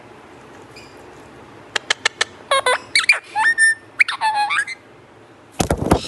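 Alexandrine parakeet making a run of short squeaky, pitch-bending calls and chirps from about two seconds in, opening with a few sharp clicks. Near the end comes a brief flutter of its wings.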